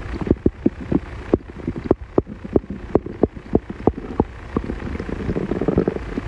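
A man's stomach growling: a rapid, irregular run of gurgling pops, several a second, over a low rumble, from gas and fluid moving through the gut.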